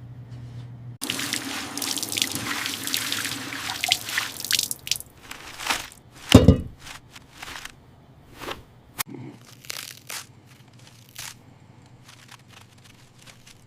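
Cartoon kitchen sound effects of salad making: water running for about three and a half seconds, as if rinsing vegetables, then scattered crisp clicks and crunches with one louder thump about six seconds in.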